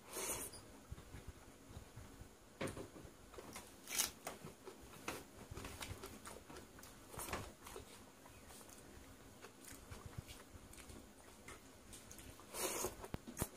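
Chewing and mouth sounds of a man eating panta bhat and potato bharta by hand: short, scattered smacks and crunches every second or two, with a few louder ones about a quarter second in, around four seconds in and near the end.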